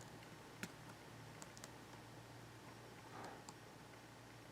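Near silence with a few faint, scattered clicks of laptop keys being pressed.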